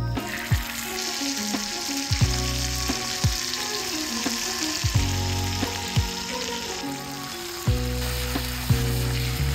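Raw beef large intestine (gyū shimachō) frying in hot oil in a cast-iron skillet over a wood fire. It sizzles strongly from about a second in, when the meat hits the oil, and eases slightly near the end as it is stirred.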